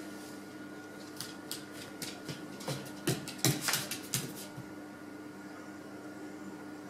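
A dog pawing at a hard-boiled egg on a wooden floor, heard as a quick run of light clicks and taps that starts about a second in and stops after a few seconds. A steady appliance hum runs underneath.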